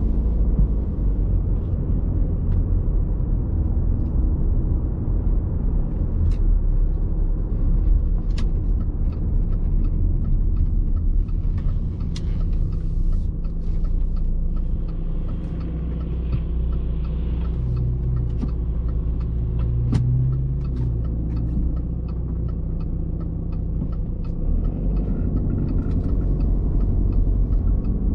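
Audi A6 C6 2.0 TDI four-cylinder diesel running under way with a steady low drone, mixed with tyre and road noise and a few scattered short knocks from the road surface.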